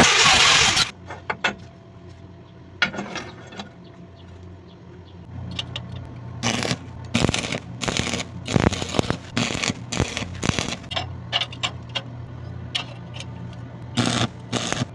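A loud power tool, most likely the angle grinder used on the hammer, stops about a second in. After that there is a low steady hum with scattered clicks and short scrapes of metal on metal.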